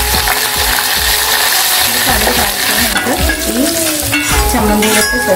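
Shallots, dried red chillies, mustard seeds and curry leaves sizzling in hot rice bran oil while a spoon stirs them and clicks against the pan. Toward the end the hot tempering is tipped over the coconut chutney.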